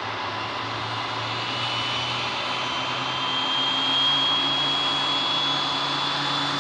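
Twin-turboprop Beechcraft King Air 350 with Pratt & Whitney PT6A engines running at take-off power. A steady loud rush with a high turbine whine that rises slowly in pitch and a low propeller hum, growing slightly louder.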